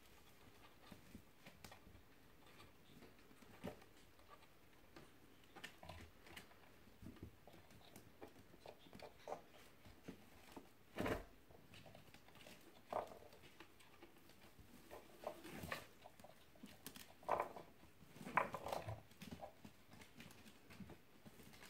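Kittens moving about: faint scattered pattering and rustling, with a few louder short knocks and scuffs near the middle and toward the end.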